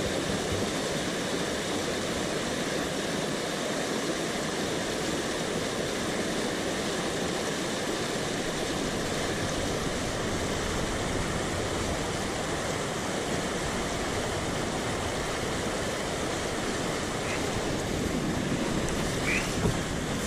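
Steady rushing of a swollen mountain stream, its water running high.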